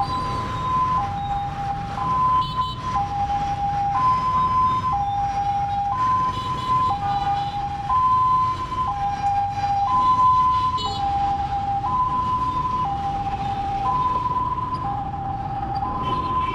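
A two-tone siren switching back and forth between a higher and a lower note, each held about a second, steady throughout, over the low rumble of dense motorbike traffic.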